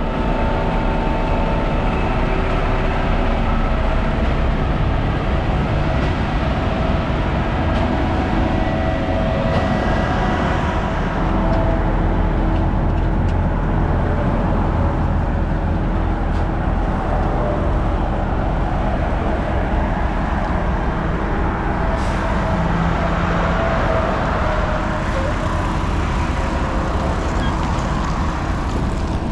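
Concrete mixer truck's diesel engine running steadily, a constant low rumble with a few held engine tones.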